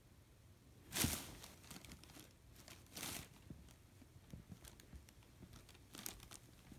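Kotatsu quilt rustling as a cat burrows its way into the folds: bursts of fabric rustle, the loudest about a second in and again about three seconds in, with smaller rustles near the end.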